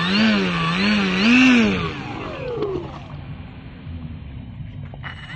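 Electric motor and air propeller of a radio-controlled airboat whining as the throttle is blipped. The pitch rises and falls about three times, then winds down about two seconds in. It runs lower and quieter, then revs up again near the end.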